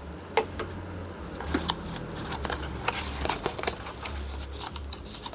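Hands handling a cardboard phone box and its packaging: a run of light taps, scrapes and paper rustles as the paperboard insert is pulled out of the box.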